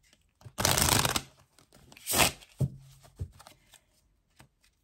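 A deck of oracle cards shuffled by hand: one long rustling shuffle about half a second in, a shorter one around two seconds, then a few light taps of the cards.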